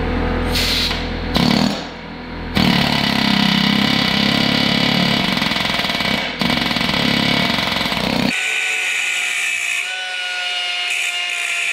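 Pneumatic air chisel hammering on the seized eccentric cam locking collar of a snow blower auger bearing: two short bursts, then a long run of about six seconds that fails to free the collar. A little after eight seconds it gives way to a cordless angle grinder running with a steady high tone.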